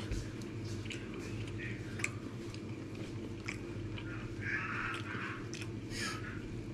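A person eating noodle soup with chopsticks: chewing mouthfuls, with a few short clicks and a brief slurp just past the middle.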